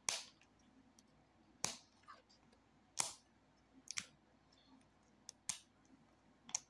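Short plastic crackles and clicks, about one every second, as fingernails pick and peel at the plastic wrapping of a Rainbocorns Puppycorn surprise egg.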